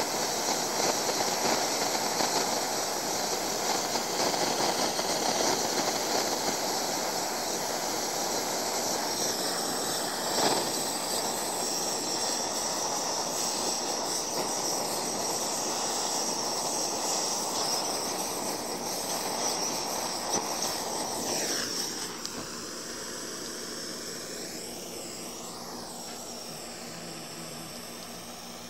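Blowtorch flame burning with a steady rushing noise against a steel ball, with one brief knock about ten seconds in. About 22 seconds in the sound falls in pitch and drops away as the torch is shut off, leaving a fainter hiss.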